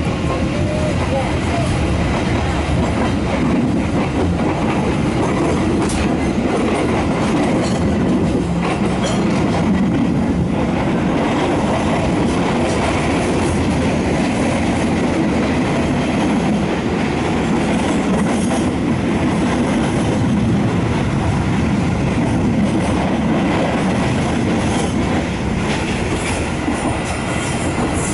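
Kereta Api passenger train running on the rails, heard from inside a carriage: a steady, loud low rumble of wheels and car body, with a few faint knocks.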